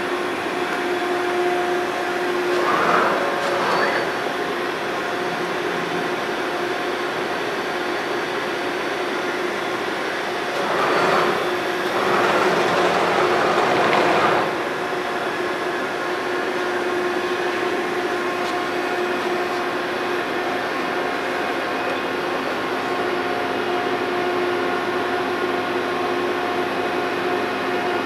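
Steady machinery hum with a couple of fixed humming tones, swelling into a louder rushing hiss about three seconds in and again for a few seconds near the middle.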